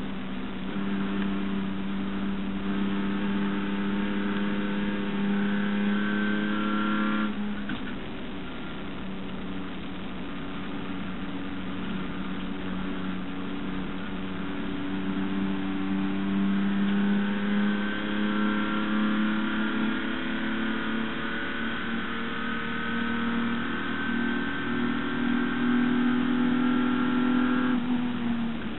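Holden HQ race car's straight-six engine heard on board under load, its pitch climbing steadily for about seven seconds and then dropping suddenly. It pulls again with a long, slow rise in pitch and drops once more near the end.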